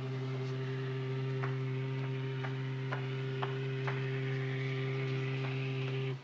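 A ship's horn sounding one long, steady low blast that cuts off suddenly near the end, the signal that the ship is about to sail. Light clicks come about twice a second in the middle.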